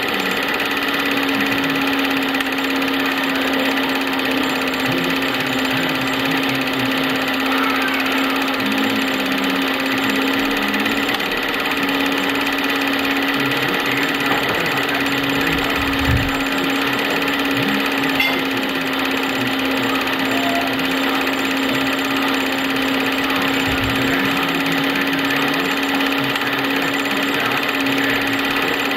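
Cine film projector running: a steady mechanical whirr with a constant hum.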